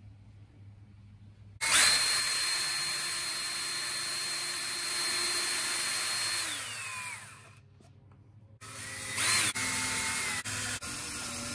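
Ryobi cordless drill boring holes into the edge of a plywood box. It starts about two seconds in with a steady whine and winds down, falling in pitch, a little after six seconds. After a short pause it starts again with a quick rev and runs on with brief stops.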